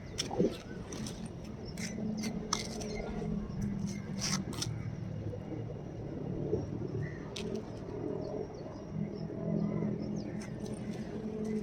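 Birds calling outdoors: low cooing notes in two spells, with short sharp chirps scattered throughout.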